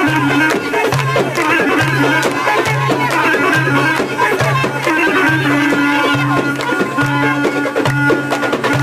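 Loud traditional Middle Eastern folk music over a steady, repeating low two-note bass beat, with a dense mix of instruments and voices above it.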